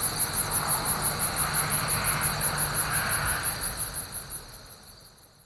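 Loud crickets chirping in rapid, even high-pitched pulses, about seven a second, over a steady high trill. The chorus fades out over the last couple of seconds.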